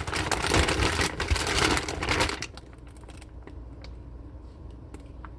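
Plastic bag of frozen fries crinkling and rustling as it is handled, loud for about two and a half seconds, then only a few faint clicks.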